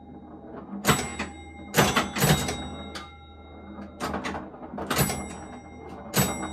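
1962 Gottlieb Flipper Clown electromechanical pinball machine in play. It gives about seven sharp, irregular clacks as it scores, several of them leaving a ringing tone, over a faint low hum.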